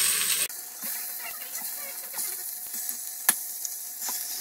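Beef short ribs sizzling as they sear in hot oil in an electric multi-cooker's stainless pot on high sauté: a steady high hiss with small crackles, loud at first and dropping suddenly about half a second in, with one sharp tick near the end.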